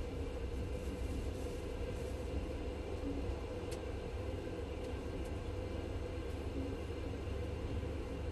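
Steady low rumble of a moving passenger train heard from inside the carriage, its wheels running on the rails.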